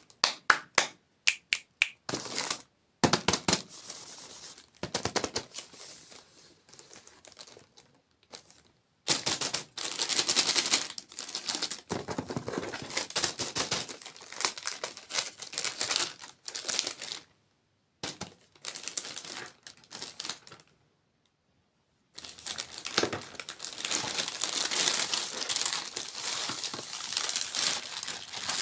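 Close-miked ASMR mukbang sounds of handling and eating desserts: crinkling, crackling and crunching, with a quick run of sharp clicks at the start and a few sudden short silences between segments.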